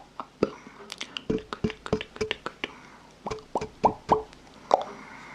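ASMR mouth sounds close to the microphone: a quick, irregular run of wet lip and tongue pops and clicks, some with a short pitched pop.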